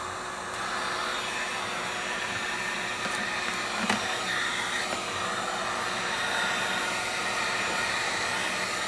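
Electric heat gun blowing steadily, its fan and air noise getting louder about half a second in, as it is used to warm a tablet's plastic frame to loosen the glued-on touch-screen digitizer. A single light click about four seconds in.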